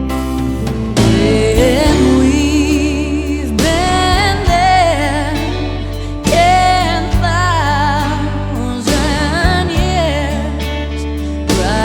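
Background music: a song with a singer holding long, wavering notes over a steady bass line.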